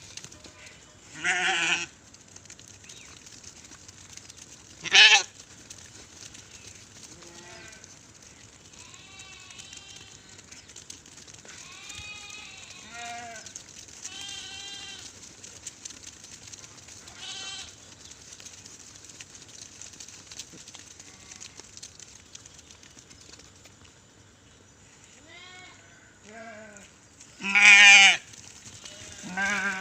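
Sheep bleating in a flock: loud calls near the start, about five seconds in and twice near the end, with many fainter bleats from other sheep in between.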